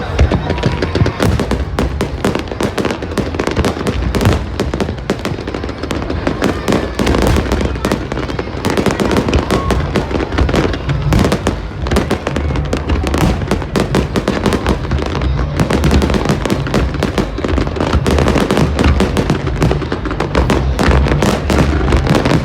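Fireworks display going off without a break: dense, rapid crackling and popping over repeated low booms.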